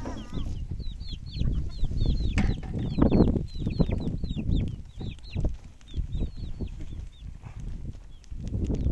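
Chicks peeping: many short, high, falling cheeps, several a second, over a low uneven rumble that is loudest about three seconds in.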